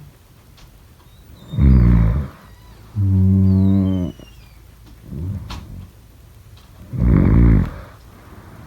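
A person snoring: two loud, harsh snores about five seconds apart, with a steady-pitched, hum-like breath about a second long between them.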